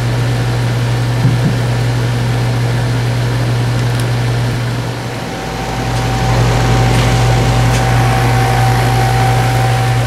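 R-410A heat pump outdoor unit running in cooling mode: a steady low compressor and condenser-fan hum. It dips briefly about halfway through, then comes back a little louder with a faint steady whine on top.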